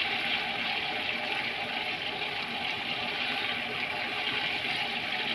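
Minced garlic sizzling steadily in butter and oil in a frying pan over raised heat.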